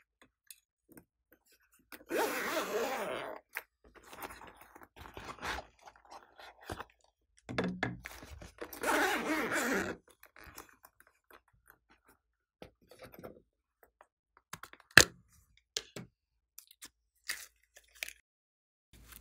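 A zipper on a round zippered pouch being pulled open in two long rasping pulls, with light handling noises between them and a single sharp click near the end.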